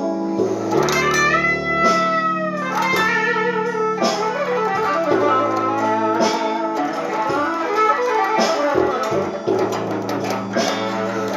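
Electric guitar playing a slow blues, with single-note lines over low sustained notes, including a bent note about a second in.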